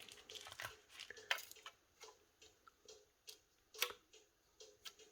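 Faint, scattered clicks and taps of small parts being handled and fitted into a smartphone's frame, with a sharper tick about four seconds in.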